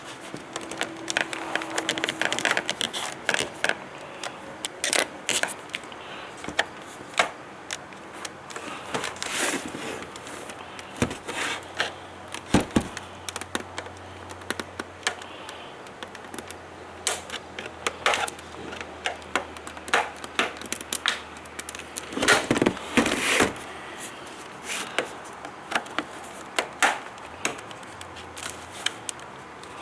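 Screwdriver prying along the seam of an LCD monitor's plastic case, with irregular clicks and snaps as the retaining tabs pop loose, a louder cluster of snaps a little over three quarters of the way in.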